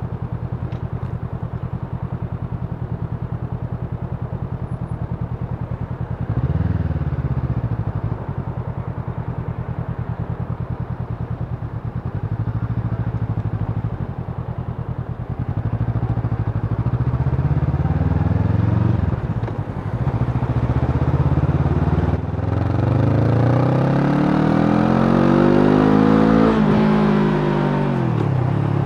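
Honda CMX500 Rebel's 471 cc parallel-twin engine, heard from the bike itself, running at low revs in slow traffic, then revving up in pitch several times as it pulls away. Near the end comes a long rising rev that drops sharply as it shifts up.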